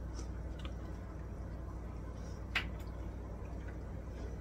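Butter melting in an enamelled cast-iron pot, faintly crackling over a steady low hum, with one sharp click about two and a half seconds in.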